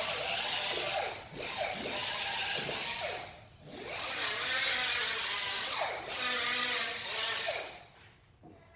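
Hand-held power tool working on a part in about four long passes, its motor pitch dipping and recovering as it is leaned on, under a rough grinding hiss.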